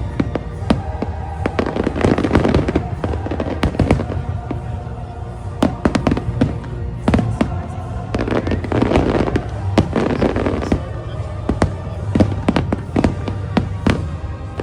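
Fireworks bursting in quick, irregular bangs and crackles over the show's music.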